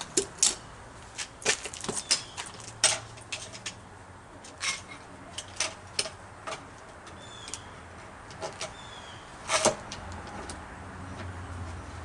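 Irregular sharp clicks and knocks of hand tools and hardware being handled while a wooden form board is clamped against a wall, with a faint bird chirping twice in the second half.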